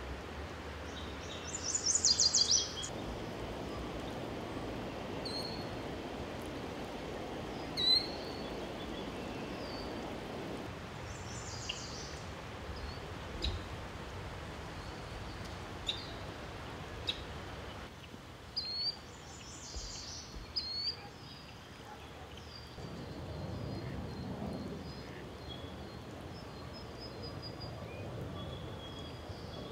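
Floodwater rushing steadily across pavement and over a concrete edge, with bird calls and chirps over it: a loud run of rapid high notes about two seconds in, then scattered calls through the rest.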